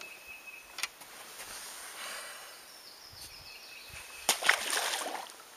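Rustling and several sharp clicks about four seconds in, fitting a person in nylon rain gear crouching and shifting on a boat deck. A faint, thin, high chirp sounds twice, once near the start and once past the middle.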